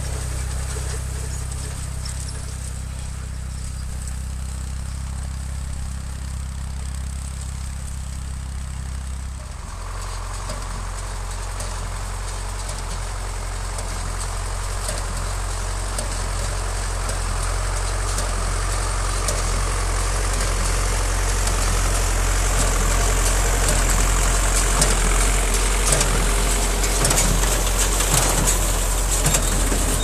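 A David Brown 780 diesel tractor running steadily as it pulls a hay tedder. After a cut about ten seconds in, a Zetor 5545 diesel tractor tows a Massey Ferguson 20-8 conventional baler, growing louder as it comes closer. The baler's mechanical clatter gets clearer near the end as it passes.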